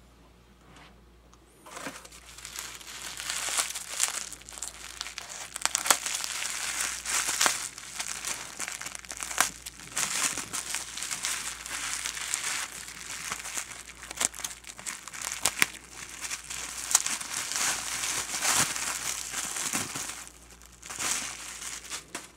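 Plastic bubble wrap crinkling and rustling with sharp crackles as a wrapped item is pulled out and unwrapped by hand. It starts about two seconds in and dies away near the end.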